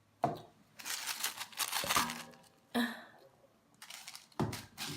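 Crinkling and rustling of paper takeout food packaging being handled, in four separate bursts, the longest lasting over a second.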